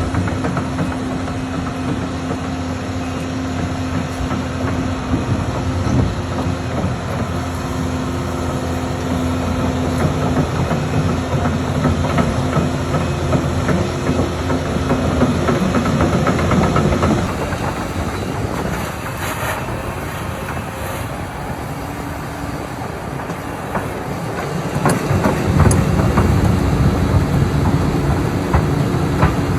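Excavator's diesel engine running steadily, with a few sharp knocks. The sound changes abruptly about halfway through and grows louder near the end.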